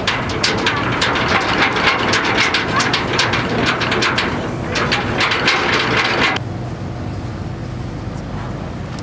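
Ferry's engines droning low and steady. For the first six seconds a dense run of sharp clicks and crackles sits over the drone, then cuts off abruptly, leaving only the engine drone.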